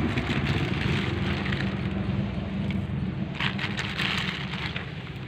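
Steady low hum of a running engine, with a few short crackles about three and a half seconds in.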